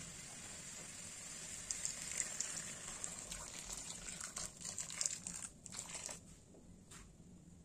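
Water poured into a bowl of chopped pumpkin and spices, splashing onto the pieces. The pour grows busier about two seconds in, then thins out and stops about six seconds in, leaving a few light clicks.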